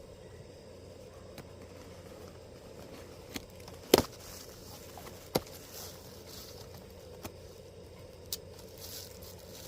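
A handful of sharp knocks and clicks, the loudest about four seconds in and others about a second apart, over a faint steady hum: parts or tools being handled during work on an air-conditioner fan motor.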